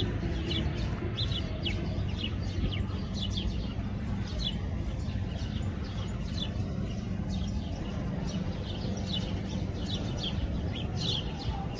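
Sparrows chirping: many short, high chirps in quick succession over a steady low rumble.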